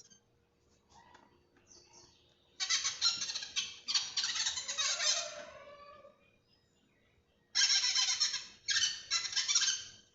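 Harsh, screeching animal cries in four bursts, the second trailing off into a lower falling tone.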